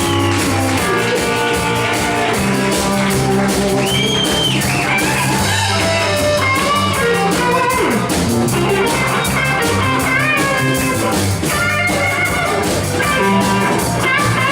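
Live rock band playing: electric lead guitar with bent, sliding notes over bass guitar and a drum kit.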